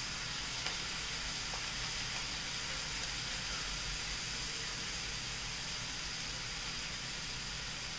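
Sliced onions, green chillies and capsicum sizzling steadily in oil in a frying pan.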